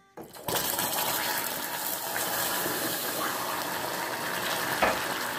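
Water poured into hot caramelized sugar in an aluminium saucepan, hissing and bubbling as it boils up. The noise starts suddenly about half a second in and keeps up steadily. A short knock comes near the end.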